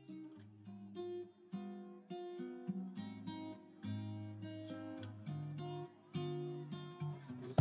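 Background music: a quiet acoustic guitar picking a melody of single plucked notes, several a second.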